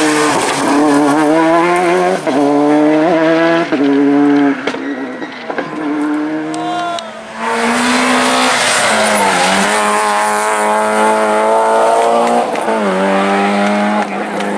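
Two rally cars taken one after the other through a tight bend, a Citroën DS3 and then a Peugeot 106: the engines rev hard, the pitch climbing and dropping with brief dips at gear changes. The second car comes in loud about seven seconds in.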